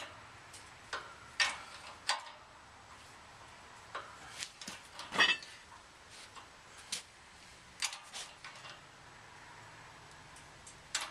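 Scattered sharp metallic clicks and ticks at uneven intervals, with one louder crack about five seconds in, from a press working against a stuck baler gearbox output shaft.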